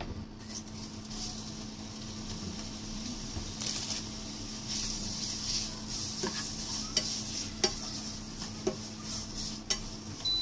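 Sliced pork sizzling in hot oil in a frying pan, starting about half a second in, as a spatula stirs it and knocks against the pan several times in the second half. A steady low hum runs underneath.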